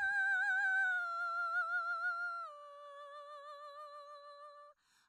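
Music: a slow melody of long held notes with a wavering vibrato. It steps down to a lower, quieter note about halfway through and breaks off briefly near the end before the next note starts.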